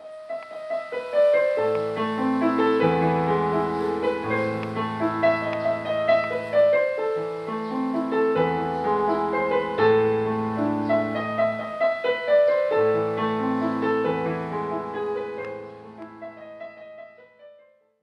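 Digital piano playing a melody over chords, with a low bass note changing every two seconds or so; the playing dies away near the end.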